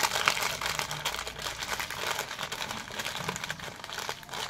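A plastic snack packet crinkling and rustling as it is handled in the hands, a dense run of small crackles, busiest in the first couple of seconds.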